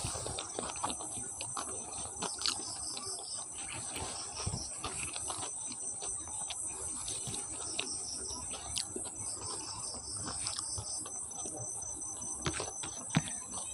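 Close-up eating sounds: fingers mixing rice with chicken curry and a mouth chewing, giving many small wet clicks. Behind them, crickets chirp steadily, in short repeated trills.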